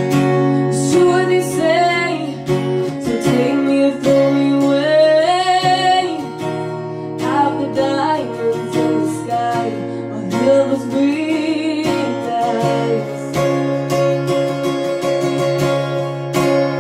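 A woman singing with her own strummed acoustic guitar: sung phrases over steady strumming, and the voice drops out for the last few seconds while the guitar plays on.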